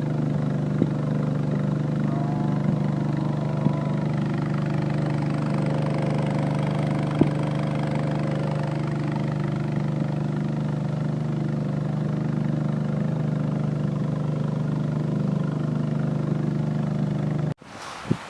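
A boat's engine running at a steady pace, a constant low hum with a few faint clicks. Near the end it cuts off abruptly and gusty wind noise on the microphone takes over.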